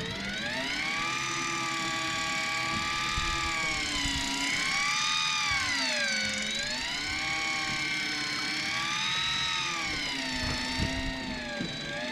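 Miya Epoch 900 electric deep-drop reel's motor whining as it winds in line, its pitch sagging and climbing back several times, each time about a second or two long. It is winding up a hooked fish from depth.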